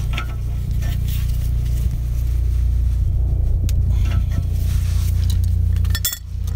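Scattered metallic clinks and scrapes of hand tools and a stainless exhaust downpipe being fitted and tightened at its flange, over a steady low rumble.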